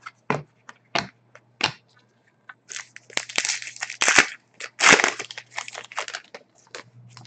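A few sharp taps of trading cards set down on a table, then a foil card-pack wrapper being torn open and crinkled for several seconds, from about three seconds in.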